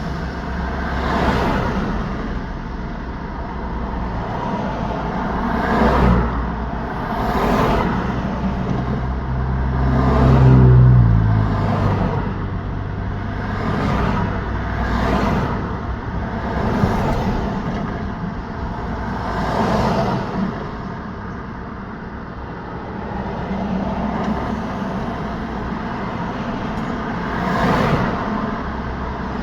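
Road traffic: cars passing one after another, each a rising and fading tyre swoosh. About ten seconds in, a heavier vehicle goes by, the loudest pass, its low engine drone dropping in pitch as it passes.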